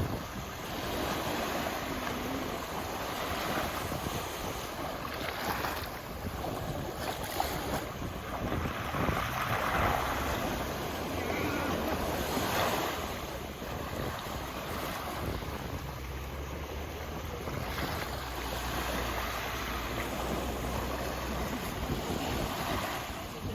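Sea waves washing onto the shore in slow swells, with wind buffeting the microphone in a steady low rumble.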